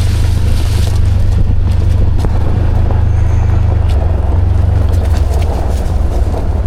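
Vehicle engine running with a steady low rumble, and a few faint clicks.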